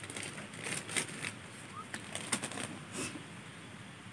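A few faint, scattered clicks and rustles from hands and a plastic snack bag being handled, with a bird's short rising chirp about two seconds in.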